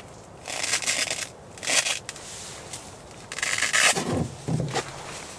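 Fabric rustling and scraping close by, in three short bursts, followed by a couple of dull thuds about four seconds in.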